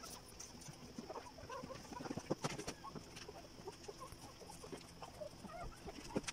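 Newborn Belgian Malinois puppies giving short, faint squeaks and peeps scattered throughout, with a few sharp clicks as the mother shifts about in the whelping box.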